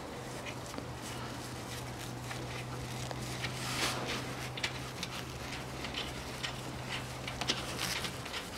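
Scattered small clicks and rustling of gloved hands fitting the timing-belt idler pulley and its bolt by hand. A steady low hum runs underneath and stops near the end.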